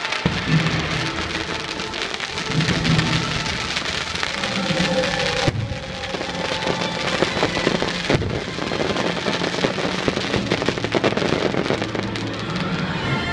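Fireworks barrage: dense crackling like heavy rain, with scattered bangs, over show music.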